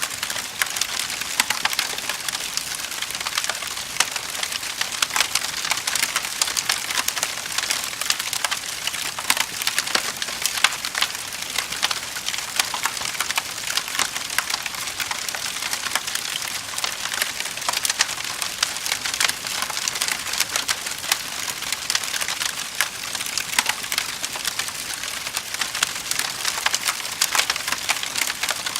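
Wood fire burning in a fireplace, crackling with a steady stream of small snaps and pops over a soft hiss.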